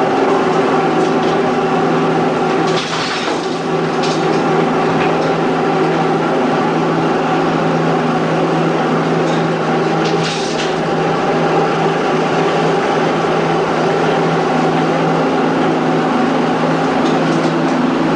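Steady, loud noise of underground mine machinery, a constant hum with several steady tones. Short hisses come about three seconds in and again about ten seconds in.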